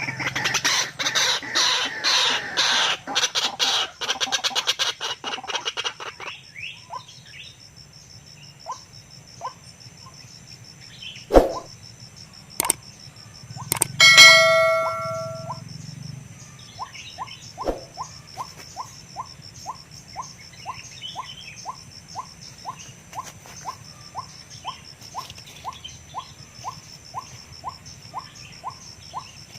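White-breasted waterhen calls: a few seconds of harsh, fast-repeated croaking calls, then a long run of short, monotonous notes at about one and a half a second. Partway through there are a couple of sharp clicks and a brief high squeal.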